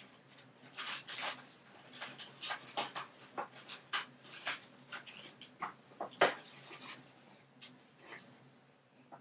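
Gift items and their packaging being handled: a run of short rustles and light knocks, with one sharper knock about six seconds in.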